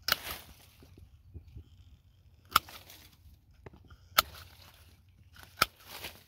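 Bypass pruning shears snipping through small jackfruit branches and shoots: four sharp snips, with a brief rustle of leaves after the first and the last.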